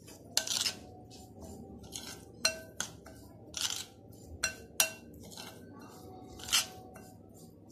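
Metal spoon scraping and clinking against a glass bowl while stirring yogurt into semolina to make a thick batter. It comes in irregular strokes, some clinks leaving a brief ring.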